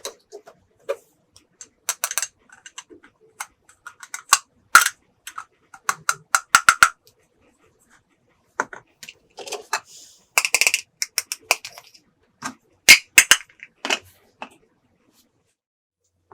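Sharp, irregular clicks and clacks of hard plastic toy pieces being handled and set down, some coming in quick runs of several clicks.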